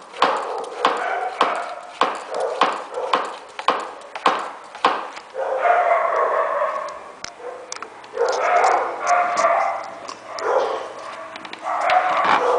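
Hand vacuum pump made from a pump-action sprayer bottle, pumped by hand about twice a second. Each stroke makes a short, sharp sound as the bottle is drawn down to vacuum. About five seconds in the pumping stops, and three long wavering vocal sounds follow.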